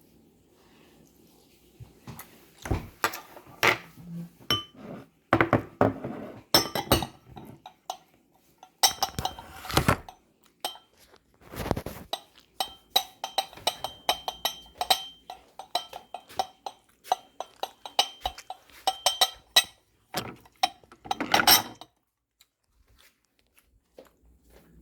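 Cutlery clinking and scraping against a soup bowl in repeated short clatters, some with a brief ring, with a few quiet pauses.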